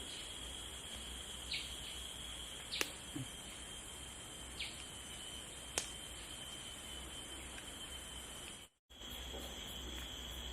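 Forest insect chorus, crickets or cicadas, droning steadily with one high, even whine and a hiss above it. Four short chirps or clicks stand out in the first six seconds. The sound cuts out for a moment near the end.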